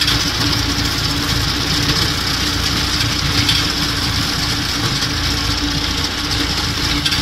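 Diesel tractor engine running steadily as it drives a front-mounted Sardar reaper binder cutting and binding wheat.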